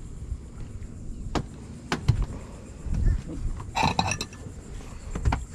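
A few sharp knocks and clicks, with low thumps and a short rasping burst about halfway through.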